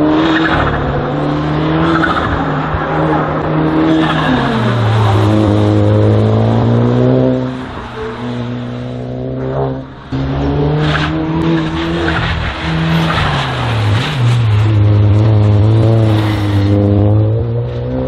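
Racing car engine running hard at high revs, its pitch dropping as the car slows and climbing again under acceleration several times.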